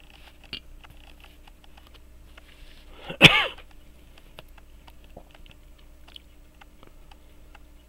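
Faint scattered clicks of a small watchmaker's screwdriver and tools against a pocket watch movement and its holder. About three seconds in comes one short, loud cough-like burst of breath from the person, falling in pitch.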